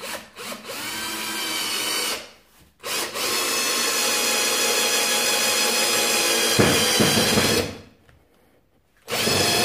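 Parkside PBSA 20-Li A1 cordless drill driving screws into wood: the motor whines under load for about two seconds, stops, then runs for about five seconds with a deeper rumble joining near its end, and starts again briefly at the end.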